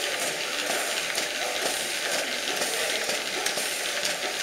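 A Messinger 25 hp stationary engine running belted, giving a steady hiss with a fast run of light clicks and knocks from its moving parts.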